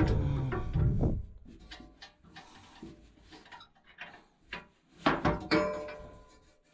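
Background music fading out in the first second, then scattered metal knocks and scrapes as a steel bar is worked against a brush hog blade under the deck. One loud metallic clank about five seconds in rings briefly before dying away.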